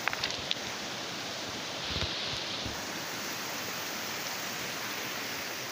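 Steady rush of flowing water from a river swollen by flooding, an even hiss without a beat. A few faint clicks come near the start, and a short low rumble about two seconds in.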